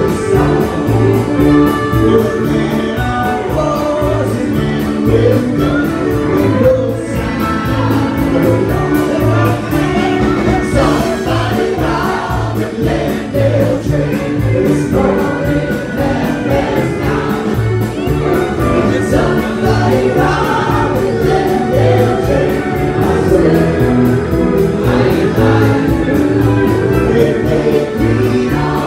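Live band playing a country-rock song with several voices singing together, over fiddle, electric guitars, drums and keyboard.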